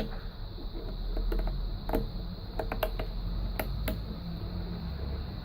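Scattered light clicks and taps from handling a rotary knob on a potentiometer's knurled 6 mm shaft, over a low steady hum.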